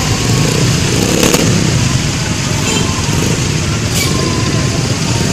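Steady motor-vehicle engine rumble, with two short sharp clicks, about a second in and near the end.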